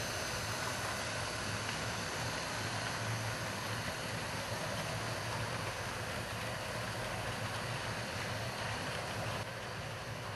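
HO-scale Norfolk & Western SD9 model locomotive running past with its train: a steady, fairly quiet whir with a low hum from the motor and wheels on the track, under camera hiss. It drops a little near the end.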